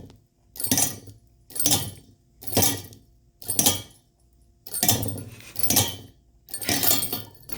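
Small metal toy bell jingling in short shakes, about one a second, seven times, as a budgie plays with it.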